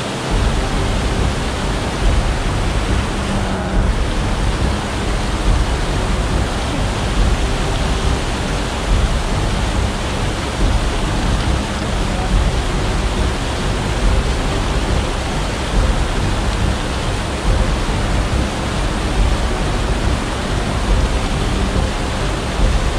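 Fast mountain creek rushing and churning over rocks close to the microphone: a loud, steady whitewater roar.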